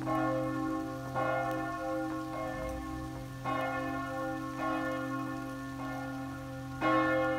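Church bells ringing in the bell tower, rung for the Armistice. Fresh strikes come about every one to two seconds, each one ringing on under the next; the strongest comes at the start and another near the end.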